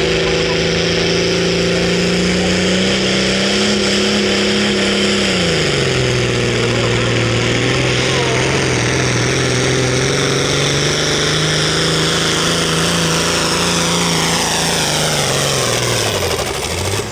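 John Deere 4455 tractor's six-cylinder diesel at full throttle, pulling a weight-transfer sled. The engine pitch climbs over the first few seconds, drops sharply about five seconds in and holds lower, then falls away near the end.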